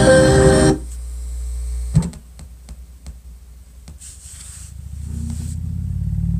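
A subwoofer playing deep bass. Music cuts off within the first second, then a low bass tone swells up twice, each time ending abruptly, with a few clicks in between.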